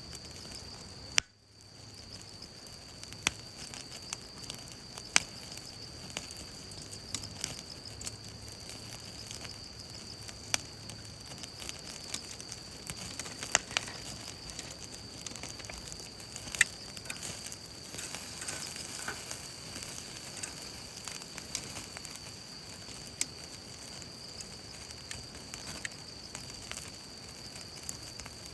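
Wood fire in a folding fire pit sizzling and crackling steadily, with sharp pops every second or two. The sound cuts out briefly about a second in.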